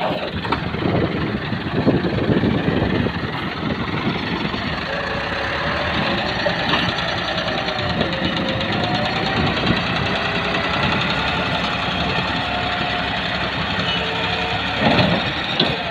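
Massey Ferguson 375 tractor's diesel engine running steadily under heavy load as it pulls a trolley heaped with sand.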